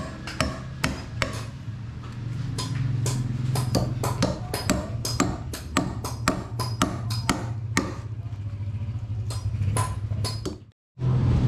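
Repeated sharp knocks, a few a second, with short ringing, over a steady low drone. The sound cuts out briefly near the end.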